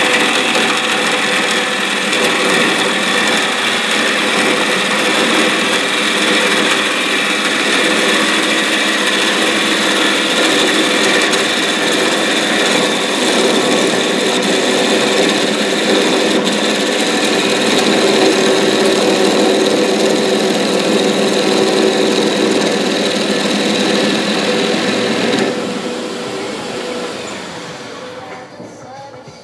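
Wood lathe running while a turning tool cuts the face of a spinning wooden disc: a steady hiss of cutting over the lathe's hum. About three-quarters of the way through, the cutting stops abruptly and the sound falls away as the tool comes off the wood.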